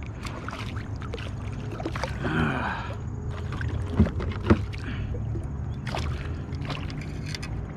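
Hooked chain pickerel thrashing and splashing at the surface beside a plastic kayak, with water sloshing and short knocks, two of them loudest about four seconds in, over a steady low rumble.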